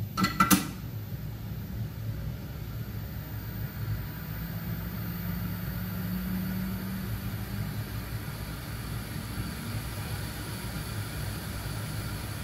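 Quick 861DW hot air rework station's blower running steadily, a low, even airy drone, with a brief louder sound just at the start.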